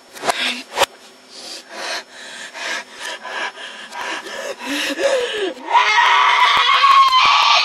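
Audio played in reverse: a boy hammering on a computer keyboard, a rapid clatter of key strikes, then about three-quarters of the way through a loud, sustained high yell.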